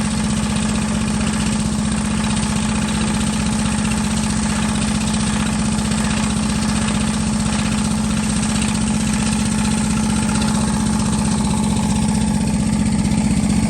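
Drilling rig's engine running steadily at a constant speed, a continuous loud hum that grows a little louder near the end.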